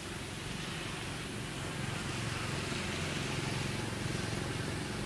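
A motor vehicle's engine running steadily with road noise, getting a little louder about two seconds in.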